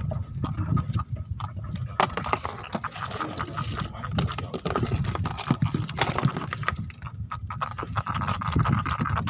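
Freshly caught scad flapping and slapping on a wooden boat deck: rapid, irregular taps and knocks, over a steady low rumble.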